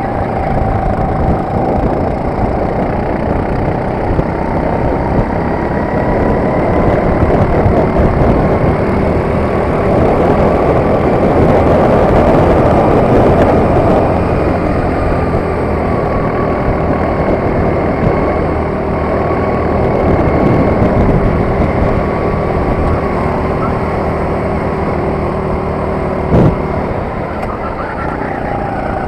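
Onboard sound of a Sodi RT8 rental kart's four-stroke engine running at speed, its pitch rising and falling gently with the throttle. It is loudest about halfway through and eases near the end as the kart slows into a corner, with a single sharp knock shortly before.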